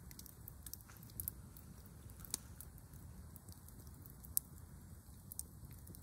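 Wood campfire crackling: scattered sharp pops and snaps, with two louder pops about two and a half and four and a half seconds in, over a faint low rumble.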